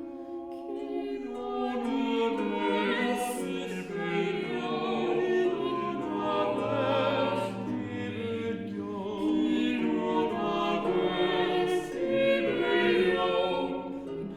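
Small vocal ensemble singing a four-voice Italian Renaissance madrigal a cappella, the voice parts weaving in overlapping lines with sung consonants.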